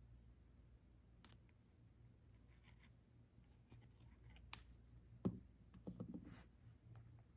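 Faint desk sounds of paper crafting on a journal page: scattered small clicks and scrapes of paper and stationery being handled, with a soft knock about five seconds in and a few more just after.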